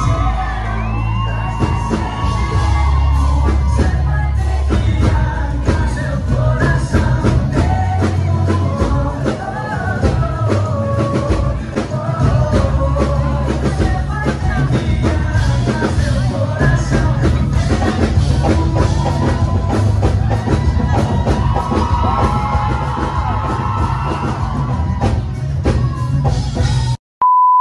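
Live band concert heard from within the audience: a male singer with drums, bass and guitar, with crowd shouts and whoops. Just before the end the music cuts off and a loud, steady beep tone begins.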